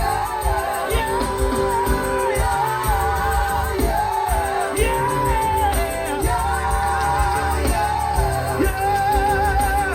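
Live gospel music: a voice holding long, wavering sung notes over a band.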